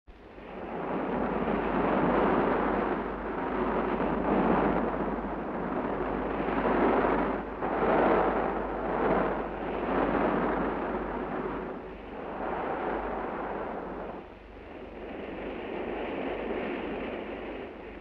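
Rushing wind and sea noise that swells and fades every second or two, over a steady low hum.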